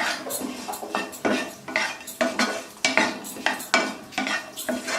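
A spatula scraping and knocking against a frying pan while stirring egg and green peas, with sharp strokes about twice a second.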